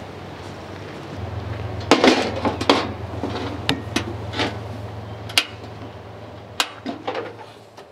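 Metal clanks and knocks of camp cooking gear being handled: a two-burner camp stove in its metal case set down on a picnic table and its lid opened, with a run of sharp knocks over a steady low hum. It fades out near the end.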